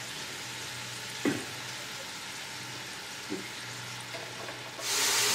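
Olive oil frying in a pan with a steady sizzle, and a short utensil knock about a second in. Near the end the sizzling turns suddenly much louder.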